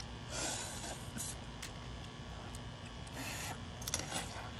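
Two short slurps of someone sucking the juice from a boiled crawfish head, with small clicks of shell being handled.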